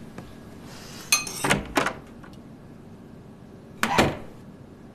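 A door shutting and tableware clinking: a cluster of short knocks and clinks about a second in, and one more sharp knock near four seconds.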